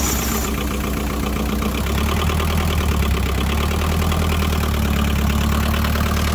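A Perkins diesel engine in a JCB 208s, running steadily just after its first start in years. It is freshly running on a rebuilt injector pump, which has cured its failure to start.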